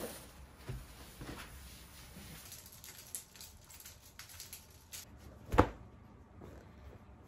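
Light rustling and small plastic clicks as laundry is taken off a plastic peg hanger, with one sharp knock about five and a half seconds in.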